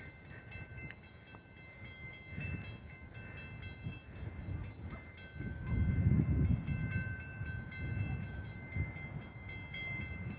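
Grade-crossing warning bells ringing in a fast, even rhythm as a Metra train approaches in the distance, with low rumbling swells that peak about six seconds in.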